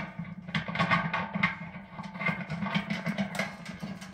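Background music with many short, quick notes over a steady low tone.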